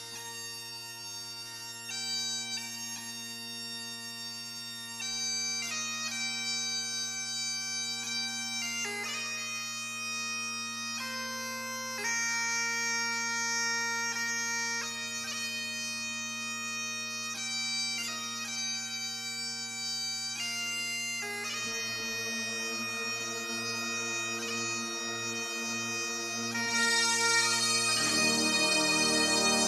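Bagpipe music: steady drones held under a slow chanter melody. The sound grows fuller about two-thirds of the way through and louder near the end.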